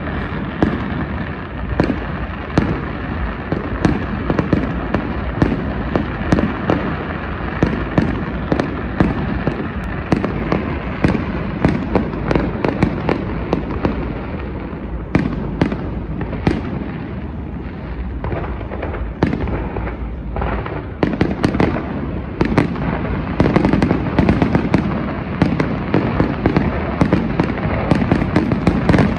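Fireworks display: aerial shells bursting in a continuous rumble, with many sharp cracks and bangs, coming thicker near the end.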